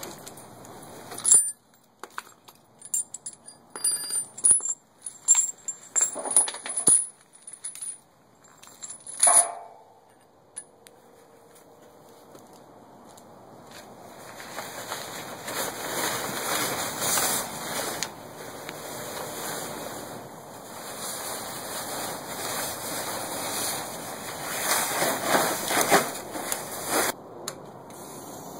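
A run of sharp clicks, rattles and jingles from riding gear and keys being handled. After a short lull comes a long fabric rustle that swells and falls as a motorcycle cover is pulled off the bike. The engine is not running.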